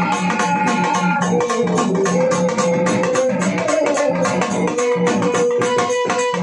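Instrumental folk music: a melody of long, held organ-like notes over fast, steady drumbeats, as on a dimdi frame drum.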